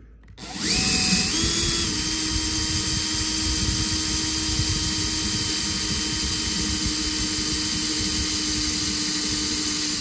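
Cordless drill with a number 16 bit drilling into the swaged steel axis pin of an AK mag catch, run slowly under heavy feed pressure to weaken the swage so the pin can be punched out. The motor whine starts just after the beginning, rises in pitch over the first second or so, then runs steadily until it stops at the very end.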